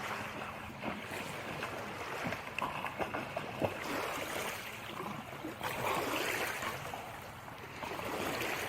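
Water splashing and sloshing, with scattered small knocks.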